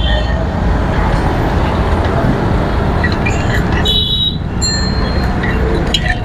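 Steady low rumble of wind and road noise on an action camera while riding in road traffic, with a brief high tone about four seconds in.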